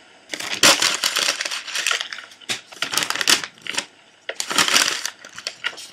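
A sheet of paper crinkling and crackling as it is folded and pressed by hand, in a long run of crackly bursts, a short pause, then more.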